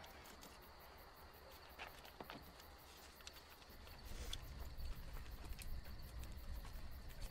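Faint outdoor summer ambience: insects chirping in a fast, even rhythm, with a few soft clicks. A low rumble comes in about four seconds in.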